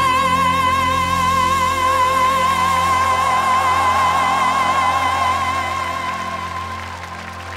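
Female pop singer belting one long, high held note with a wide vibrato on the word 'rain', over a live band's steady accompaniment; the note fades near the end.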